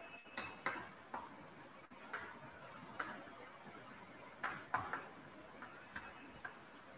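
Chalk writing on a blackboard: faint, short, irregular taps and scratches as the words are written out by hand.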